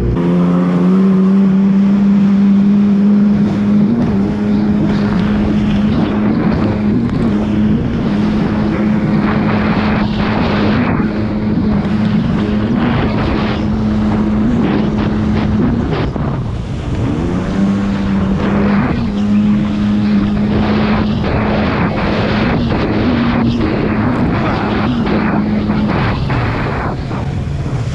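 Jet ski engine running at steady high revs at speed over a choppy sea, with water spray and the hull slapping on waves. About sixteen seconds in the revs drop briefly and then climb back, and they fall off again near the end.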